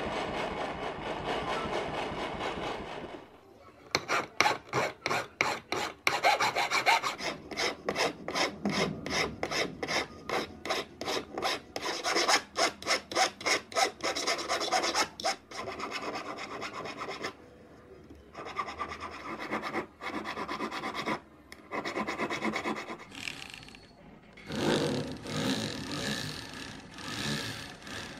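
A flat hand file rasping across the edge of a silver ring in quick, rhythmic strokes, about three a second, after a few seconds of steady hiss from a gas torch flame. Near the end the filing gives way to the running of a rotary drill handpiece boring into the ring.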